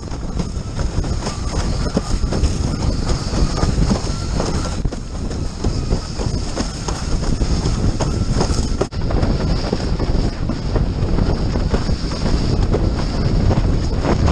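Wind buffeting the microphone of a camera mounted on a windsurf rig, over the rumble and rattle of the board planing across choppy water. The sound drops out briefly about nine seconds in.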